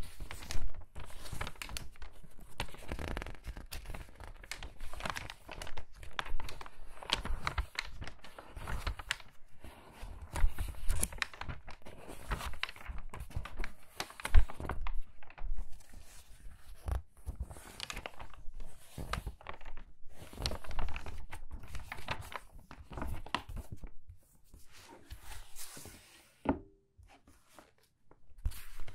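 Crinkly magazine pages being turned quickly one after another, each turn a sharp crinkling flip of the paper. There is a pause of a few seconds near the end.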